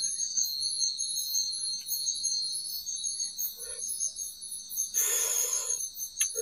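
Night-time rainforest insects keep up a steady chorus of high-pitched trills at several pitches, with a higher buzz pulsing a few times a second. A short noisy burst comes about five seconds in.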